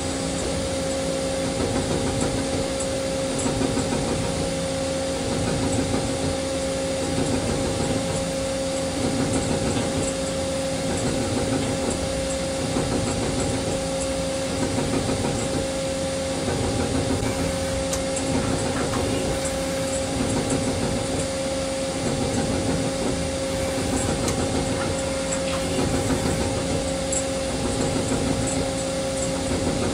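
CNC lathe running and cutting a part, a steady machine hum with two held tones under the cutting noise, which swells and eases slightly every second or two.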